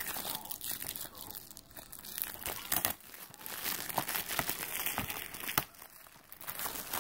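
Clear plastic shrink-wrap being torn off a DVD case and crumpled in the hand: irregular crinkling and crackling with a few sharper crackles.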